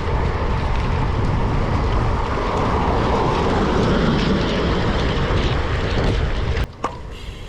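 Wind rushing and buffeting over the microphone of a bike ride through a heavy rainstorm, a dense rumbling hiss that cuts off suddenly near the end.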